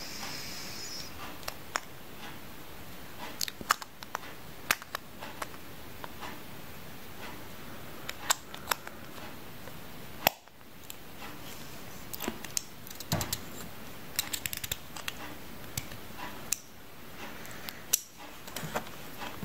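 Small hard plastic parts of a plastic-generation Beyblade clicking and snapping as they are handled and fitted together by hand, in scattered irregular clicks over a steady hiss.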